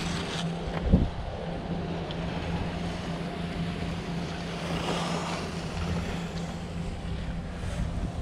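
Wind buffeting a GoPro's microphone while skiing downhill, with the scrape and hiss of skis on packed snow swelling briefly around the middle. A sharp low thump about a second in.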